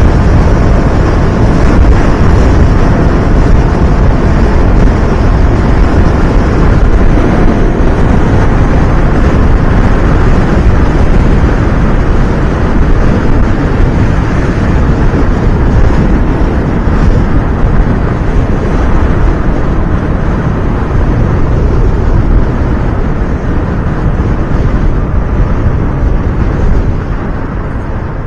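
Steady wind noise buffeting the microphone over the Honda CBR250RR's parallel-twin engine and road noise while riding at expressway speed. It eases slightly near the end as the bike slows into a curve.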